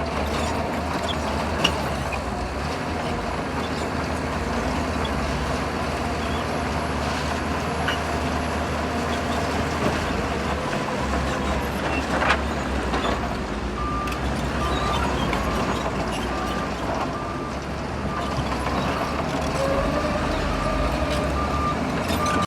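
Heavy earthmoving machinery's diesel engine running steadily under work, with a reversing alarm starting to beep in a regular on-off rhythm about two-thirds of the way in.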